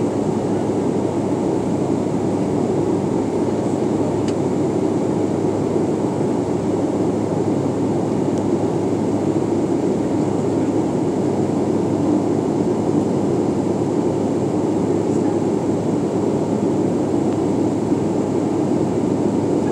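Steady cabin noise inside a CRJ-700 regional jet in flight: the rear-mounted GE CF34 turbofans and the airflow over the fuselage make an even, unbroken low rush.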